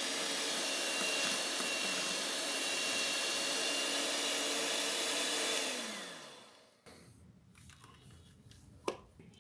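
Electric hand mixer beating egg whites and sugar to a foam in a glass bowl, running steadily, then spinning down with a falling pitch and stopping about six and a half seconds in. A single sharp click near the end.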